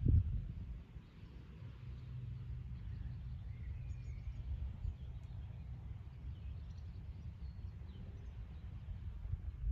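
Wind rumbling on the microphone, with two louder bumps, one at the start and one near the end. Faint bird chirps come through now and then above it.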